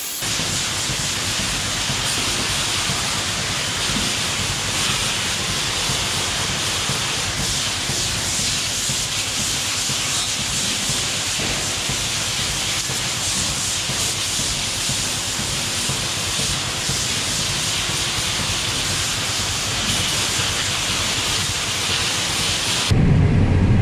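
Hose spray nozzle hissing steadily as a pressurised jet of water washes over metal stall rails and a wet floor. Near the end it cuts off abruptly into a louder low rumble.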